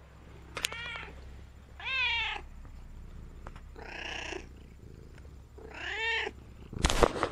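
Domestic cat meowing four times, each meow about half a second long and arching up then down in pitch, a couple of seconds apart. Near the end come a few sharp rustling knocks close to the microphone.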